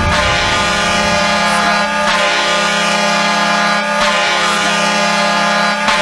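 Ice hockey arena goal horn sounding one long, steady multi-tone blast.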